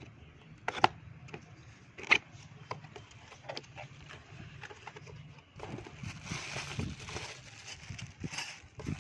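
Handling during an unboxing: sharp knocks about a second in and again just after two seconds, with small clicks between, then rustling from a little past halfway, over a low hum.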